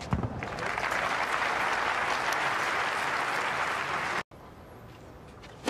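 Tennis crowd applauding a point, after a single sharp knock at the start. The applause cuts off abruptly about four seconds in, leaving only faint background noise.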